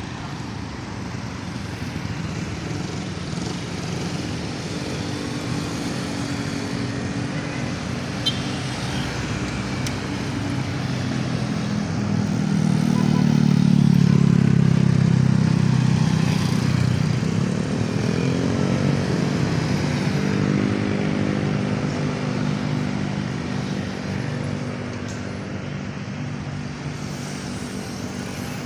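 A motor vehicle engine running, getting louder to a peak about halfway through and then easing off, its pitch shifting as it goes.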